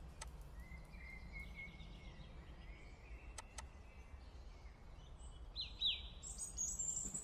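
Birds chirping over a low steady rumble, from a background soundtrack; the chirps grow louder from about five seconds in.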